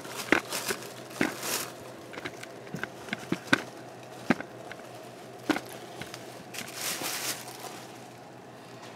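Scattered clicks and light knocks from a grind-and-brew coffee maker's plastic and metal parts being handled, with a couple of brief rustling swishes.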